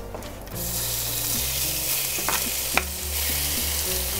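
Raw beef fajita meat scraped from a cutting board into a hot frying pan greased with its own rendered fat: the sizzle starts about half a second in as the meat hits the pan and holds steady, with a few sharp clicks.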